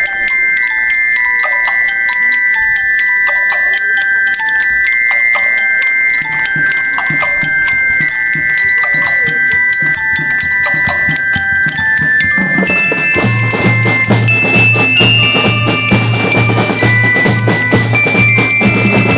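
Metallophone struck with mallets, playing a melody of ringing metal notes. About twelve seconds in, the full batterie-fanfare band comes in with drums and low brass, and the music grows louder and fuller.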